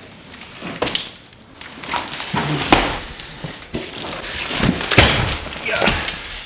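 Large cardboard shipping boxes being set down and shifted on a tile floor: several thuds with scraping and rustling between them.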